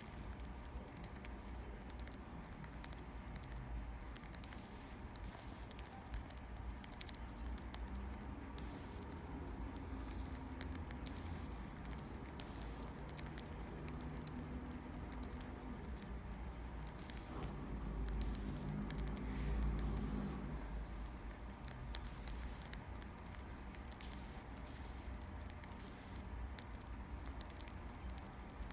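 Young budgie cracking millet seeds in its beak: a fast, irregular run of small dry clicks. Under it is a faint low hum that swells briefly about two-thirds of the way through.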